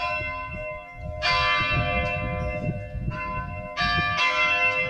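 Bells struck about four times, each stroke ringing on and overlapping the one before.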